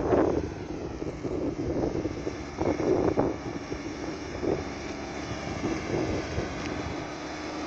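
Diesel engine of a Peterbilt semi truck running as the rig pulls away, with louder surges near the start and about three seconds in.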